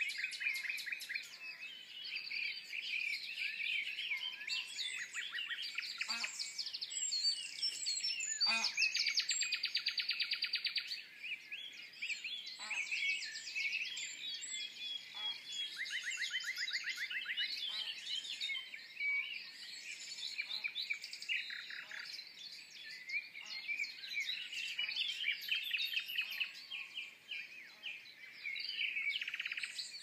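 Common nightingale singing varied phrases with fast runs of rapidly repeated notes, over a dawn chorus of other songbirds.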